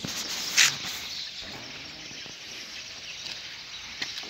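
Steady outdoor background hiss, with a brief loud rustle about half a second in and a sharp click near the end.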